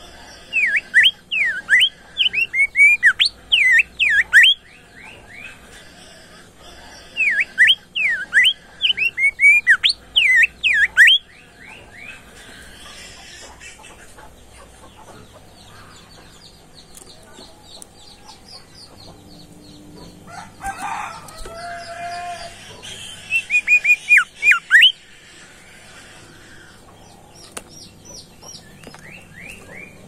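Caged bimoli songbird singing in loud phrases of quick, sharp, down-slurred whistled notes, each phrase a few seconds long with pauses between. A short final phrase comes near the end.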